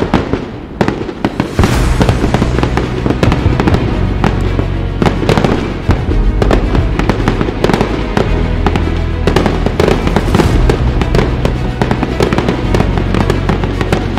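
Fireworks display: a dense run of rapid bangs and crackles from the bursting shells, with music and a steady bass under them. There is a brief lull about a second in.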